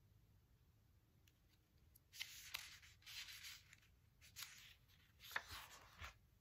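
A paper page of a large picture book being turned. After a quiet start there are several short rustling swishes of paper from about two seconds in, with one sharper snap of the page a little past the middle.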